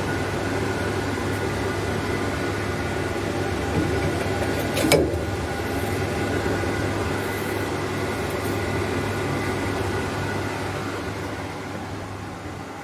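HSS saw blade grinder running with a steady mechanical hum, with a single sharp clack about five seconds in. The hum eases off over the last few seconds.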